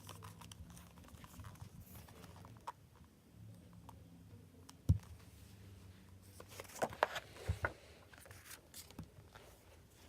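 Packaging being handled and unwrapped by hand, with scattered crinkling and tearing. There is a single knock about five seconds in and a burst of louder crinkles about seven seconds in.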